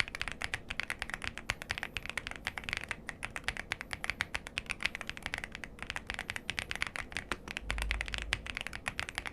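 VGN VXE75 mechanical keyboard being typed on quickly: a dense, continuous stream of key clacks, with a brief low rumble a little before the end.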